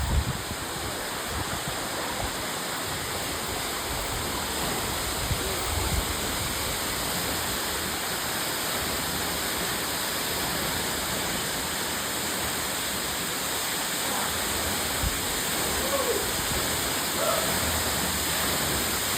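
Waterfall: water pouring down and splashing in a steady, unbroken rush.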